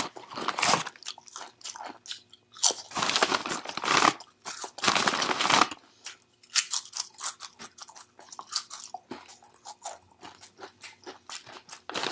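Close-up crunching of taco-flavoured Doritos tortilla chips being bitten and chewed: three loud crunches in the first six seconds, then a run of quicker, quieter chewing crackles, with another loud crunch at the very end.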